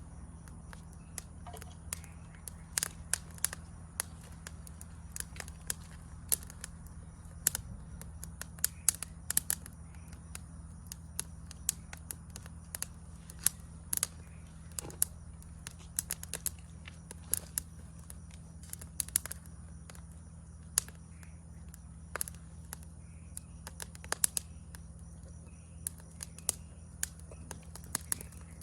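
Wood fire crackling, with many irregular sharp pops and snaps, over a steady high-pitched drone of forest insects.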